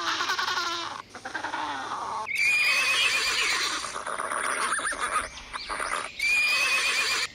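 Horses whinnying, two long wavering calls a few seconds apart.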